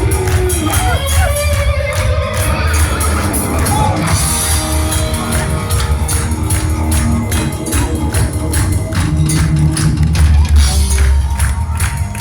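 A live rock band playing a stretch of a song with little or no singing: drums keeping a steady beat on the cymbals over heavy bass guitar and electric guitar.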